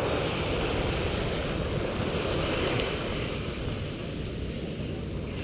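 Small surf washing up on a sandy beach, a steady rushing noise mixed with wind on the microphone.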